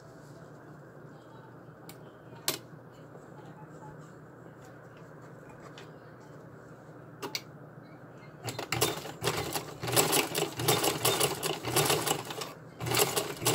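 Vintage black sewing machine stitching rapidly along a fabric collar strap. It starts about two-thirds of the way in, after a few clicks of handling, and stops briefly near the end before running on.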